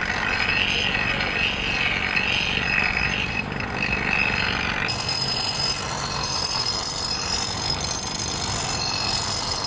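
Small electric grinder's abrasive wheel grinding the edge of a leaf-spring steel cleaver, a whining tone that wavers up and down as the blade is worked against the wheel. About five seconds in the sound changes abruptly to a brighter, hissier grind.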